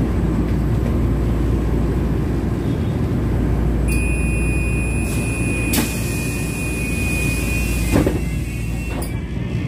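Inside a Manila LRT Line 1 light-rail car standing at a station: a steady low hum from the car. A steady high electronic tone comes in about four seconds in and lasts about four seconds. Over it come a knock, then a louder thump about eight seconds in, typical of the car's sliding doors at the stop.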